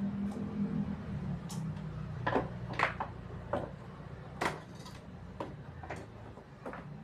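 Irregular sharp clicks and knocks of hard parts or tools being handled, about nine in all, over a low steady hum.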